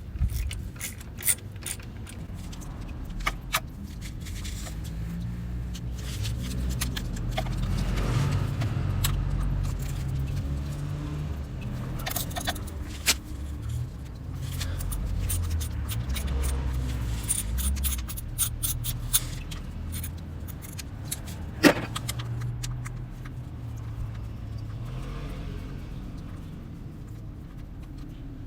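Honda CBR1000RR inline-four engine running with a low hum whose pitch steps up and down, with irregular sharp metallic clicks over it and one louder click about three quarters of the way through.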